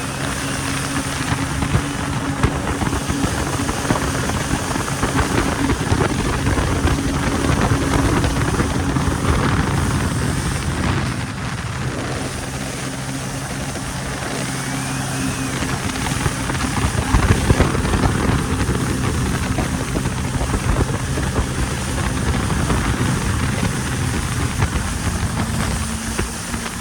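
Yamaha jet ski running at speed, its engine a steady drone under a heavy rush of wind and water spray. The engine note breaks briefly about eleven seconds in, then carries on.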